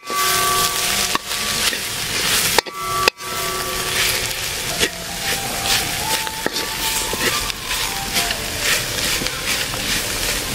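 A spatula scrapes and stirs spice powders with onions, green chillies and garlic frying in oil in a metal kadai. The steady sizzle is broken by repeated scraping strokes against the pan.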